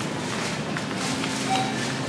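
Grocery store ambience with faint music playing.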